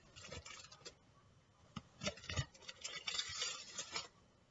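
A chef's knife cutting through baked magic cookie bars, with the nut-and-coconut topping crunching and the aluminium foil beneath crinkling. There are a few short crackles in the first second, then a denser spell of crackling from about two seconds in until near the end.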